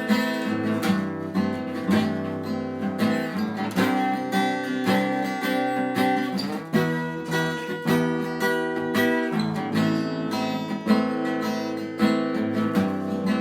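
Acoustic guitar strummed in a steady rhythm, moving through a series of chords.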